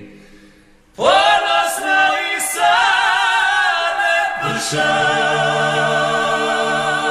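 Klapa singing a cappella in close harmony. After a pause of about a second, the voices come in together on a long held phrase, and lower voices join about halfway through.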